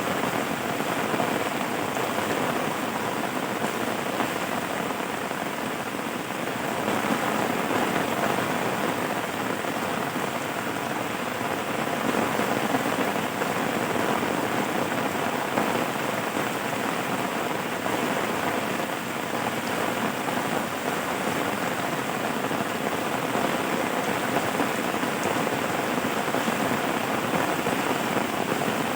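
Steady rain falling, an even hiss of many drops with no breaks or thunder claps.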